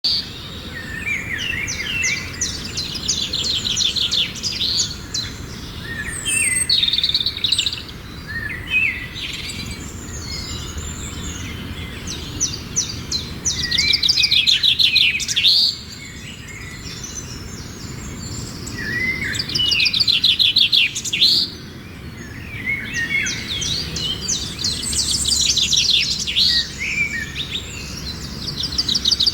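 Songbirds singing in phrases of rapid, high chirping notes a few seconds long, repeating throughout over a steady low background hiss.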